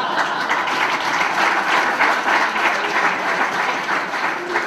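Audience applauding: many people clapping at once, a dense steady patter that eases off slightly near the end.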